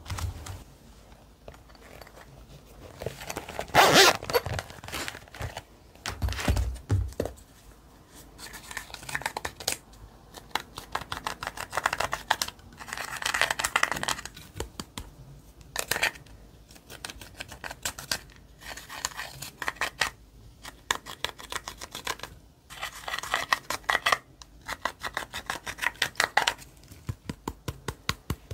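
Slime being worked by hand: squished, stretched and pulled apart, with runs of rapid wet clicks and pops and tearing crackles. The strongest burst comes about four seconds in.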